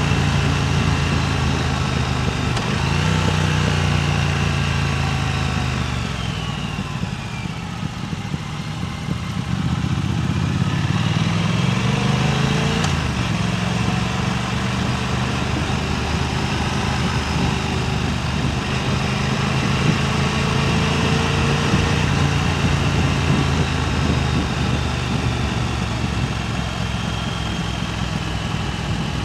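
Motorcycle engine running while riding, with wind rushing over the microphone. The engine eases off about six seconds in, then its pitch rises again about eleven to thirteen seconds in before settling into a steady run.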